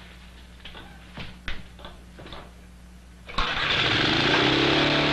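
A few light clicks and knocks, then about three and a half seconds in a gasoline power lawnmower engine starts suddenly and keeps running loudly and steadily.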